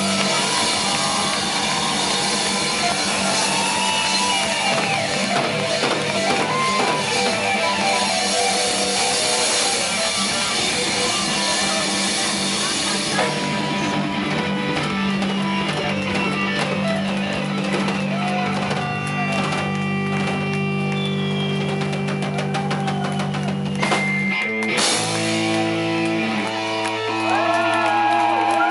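Live rock band playing an instrumental passage on electric guitar, bass and drum kit. About halfway through, the drumming thins out and long held notes ring. Near the end the held notes change to another chord.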